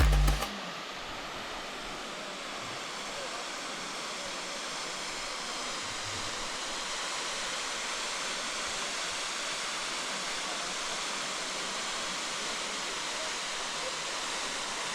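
A waterfall's falling water making a steady, even rush.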